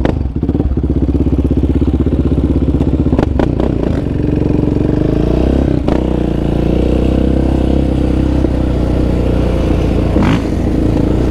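Yamaha Raptor 700R sport quad's single-cylinder four-stroke engine running under throttle while riding, its note shifting about four to six seconds in and then holding steadier.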